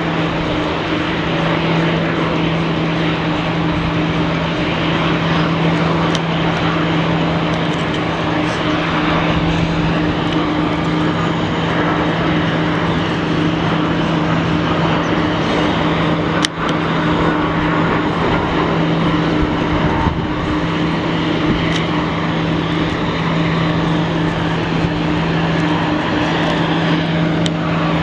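Steady, loud jet engine noise from a Boeing 747-400 freighter's four turbofan engines, with a constant low hum beneath it. A single sharp click comes about sixteen seconds in.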